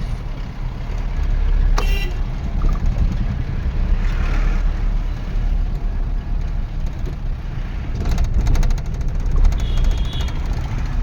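Mahindra Bolero driving on a trial run: steady engine and road rumble with no belt squeal, the fan belt freshly tightened. A single sharp click about two seconds in.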